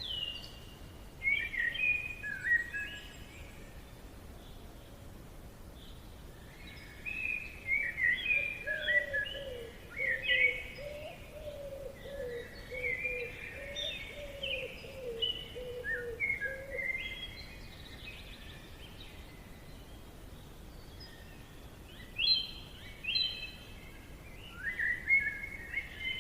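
Wild birds singing in short bursts of chirps and trills, with a second, lower-pitched bird warbling from about 8 to 17 seconds in, over a faint steady background hiss.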